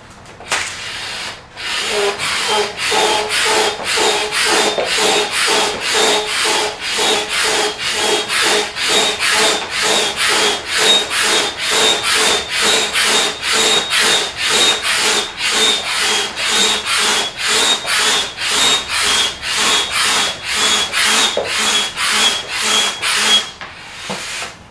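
Stansport double-action hand pump worked in quick, even strokes, about two a second, each up and down stroke giving a rasping rush of air as it inflates one chamber of a float tube. The pumping stops shortly before the end.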